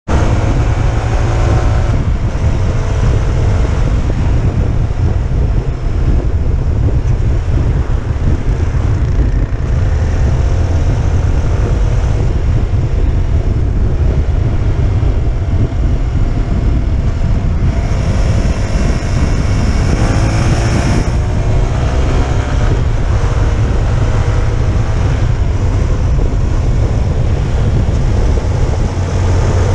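Motorcycle engine running while riding, with heavy wind buffeting on the microphone; the engine note climbs several times as the bike accelerates, most clearly about two-thirds of the way through.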